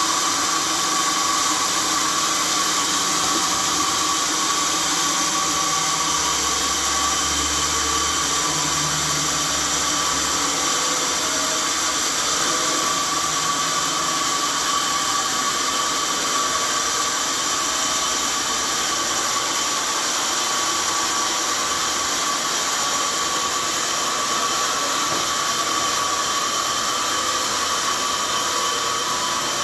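Sawmill machinery running steadily: a continuous loud noise with a steady high tone through it.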